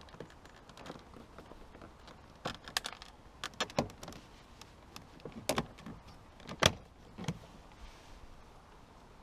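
A scattered series of sharp clicks and knocks from handling and prying at a car's interior door trim, with plastic pieces clicking and rattling; the loudest knock comes about two-thirds of the way through.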